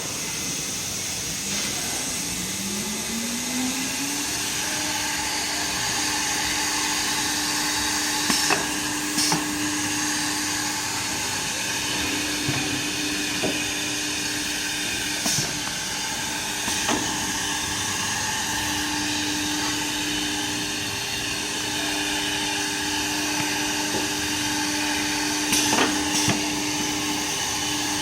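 CNC horizontal side drilling machine running: its spindle motor whine rises in pitch over the first few seconds, then holds steady over a constant airy hiss, with a few short sharp knocks along the way.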